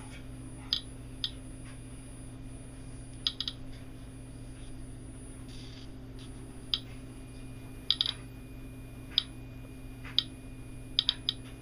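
Russian Kvarts radiation detector clicking at irregular intervals as it counts radiation from rain-wiped paper-towel samples, about fifteen sharp clicks, some in quick pairs or triples. That is well above its normal background rate of a click every 4 or 5 seconds, so the samples are reading elevated.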